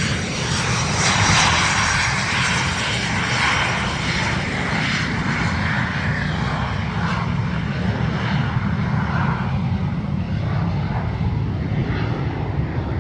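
A Cirrus Vision Jet's single turbofan engine running on the ground, a steady rush of jet noise over a low rumble, strongest in the first few seconds and easing off after that.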